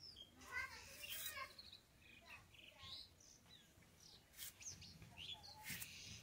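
Faint birds chirping with short scattered calls, over a few soft clicks.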